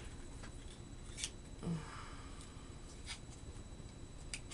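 Faint handling of packaging and items, with three light crinkles spread through.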